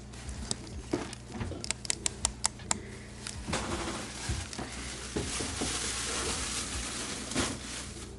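Handling noises: a quick run of light clicks, then a few seconds of rustling.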